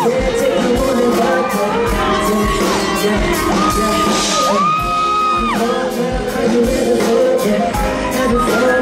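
A man singing live into a microphone over a backing track with a steady beat, holding several long high notes that slide up into pitch, played through a festival sound system.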